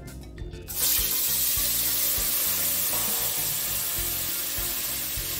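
Blended guajillo chile sauce hitting hot oil in a pot, sizzling suddenly about a second in and then slowly easing off as it fries.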